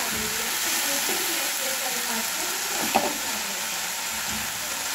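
Chopped radish leaves sizzling in hot oil in a pan while a perforated steel spatula stirs them, with one short knock of the spatula against the pan about three seconds in.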